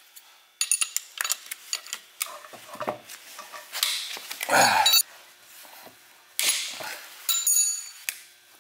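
Wrench clinking and knocking on a Nissan Z32 manual transmission's casing as its 14 mm case bolts are undone: a run of sharp metallic clinks, loudest a little past halfway.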